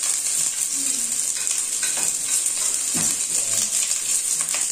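Sliced onions sizzling in hot oil in a skillet, a steady hiss, with a few clinks and scrapes of a spatula against the pan, about two and three seconds in and near the end. The sizzle is the sign that the oil is hot enough for the onions to fry well.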